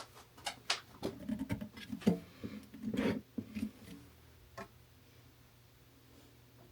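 A run of light clicks and taps from tools and workpieces being handled at a workbench, about a dozen in the first four seconds, with some low rubbing between them, then quiet.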